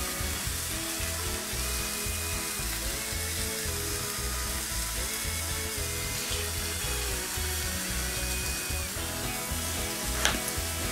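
Beef burger patties sizzling steadily on a hot steel griddle plate over a fire. A short sharp click comes near the end.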